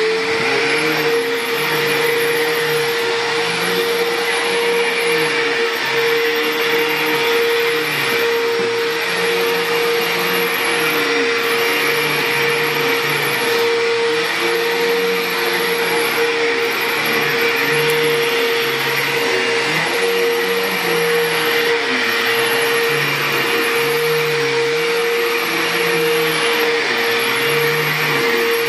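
2005 Bissell PowerTrak Revolution upright vacuum cleaner running steadily on carpet: a constant high motor whine over rushing air, with a lower hum that wavers slowly. The vacuum has been repaired and now runs.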